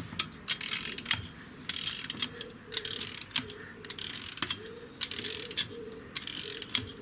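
Caravan levelling gear being wound by hand: a metal ratcheting mechanism making rasping strokes about once a second, with sharp clicks between them and a faint squeak on each stroke.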